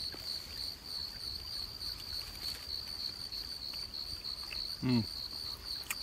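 A cricket chirping steadily: a high-pitched, evenly pulsed chirp repeating several times a second.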